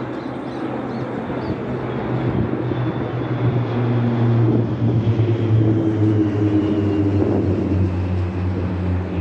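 Formation of military aircraft passing low overhead: a steady engine drone that grows louder to about halfway through, its pitch dropping slightly as the planes go past.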